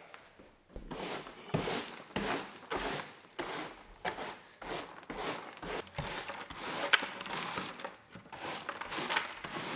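Hand brush sweeping bark debris across the inside of a spruce bark canoe hull and into a plastic dustpan, in short repeated strokes, about two a second.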